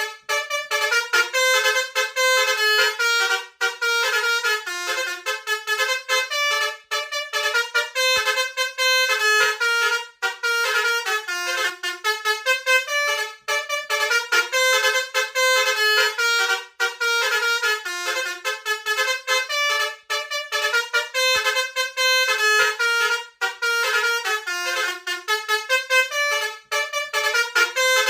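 Multi-tone 'telolet basuri' bus horn playing a tune: a continuous run of short horn notes stepping up and down in pitch, with brief breaks between phrases.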